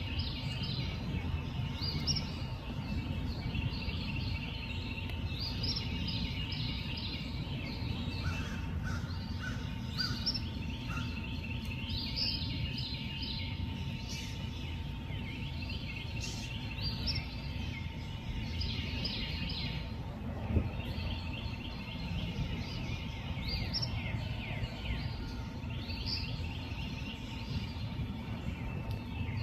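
Night ambience: high chirping calls in short trilled phrases, repeating about every two seconds, over a steady low rumble and a faint steady hum.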